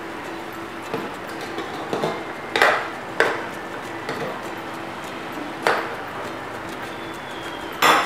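Chicken asado simmering in soy sauce in an aluminium wok, with a steady hiss, while a metal spoon stirs and knocks against the pan several times in sharp clinks, the loudest near the end.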